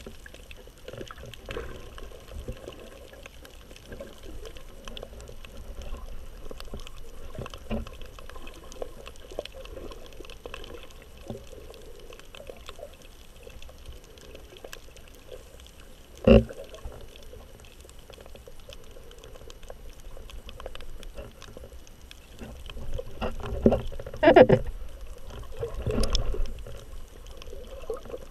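Muffled underwater sound of a submerged action camera: water sloshing around the housing, with faint crackling ticks throughout. A single sharp knock comes a little past the middle, and several louder noises come near the end.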